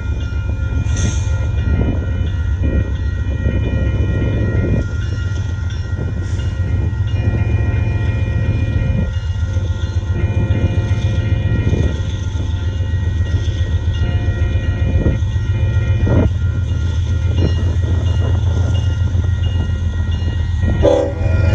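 Union Pacific freight train with diesel locomotive power: a steady, pulsing low engine rumble with scattered clanks and knocks from the train.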